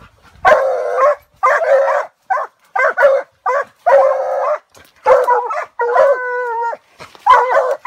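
Walker coonhounds barking treed at a raccoon up the tree: a run of short, loud chopping barks, with one longer drawn-out bawl about six seconds in.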